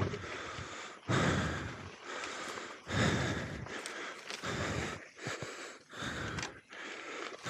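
A person breathing hard close to the microphone, in surges of breath every second or two.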